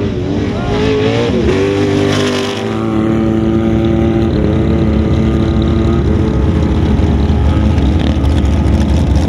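Sand rail engine revving up and down as the car launches across the sand, then from about three seconds in a steady engine note from a sand rail rolling slowly past, a little louder near the end.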